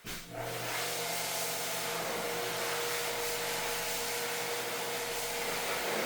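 An electric cleaning machine running steadily, a loud hiss over a motor hum, switched on at the start and cut off about six seconds later.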